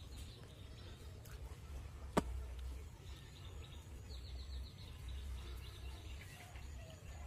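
Quiet outdoor ambience with birds chirping, including a rapid high chirping trill about four seconds in, over a steady low rumble. A single sharp click sounds about two seconds in.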